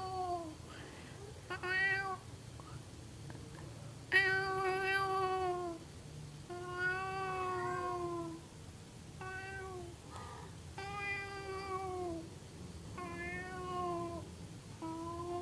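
An animal giving a series of meow-like calls, about seven in a row with short gaps. Each call lasts around a second, holding a steady pitch and dropping at the end.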